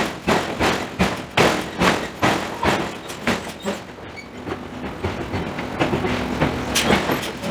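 Forging hammer striking metal in a rapid series of blows, about three a second, softer for a stretch in the middle before growing strong again near the end.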